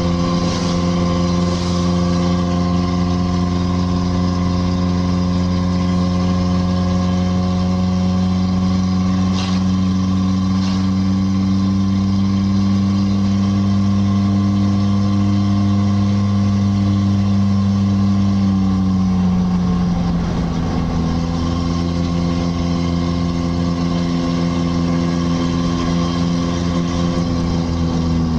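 Engine of a vehicle running under way, heard from inside the cabin: a steady engine note that creeps slowly higher, drops about two-thirds of the way through as the revs fall, then holds steady.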